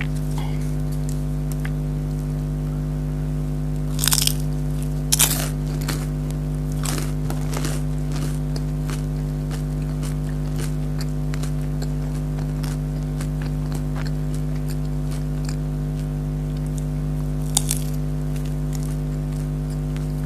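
Close-miked crunching and chewing of crispy fried food, with louder crunchy bites about four, five and seventeen seconds in, over a steady low hum.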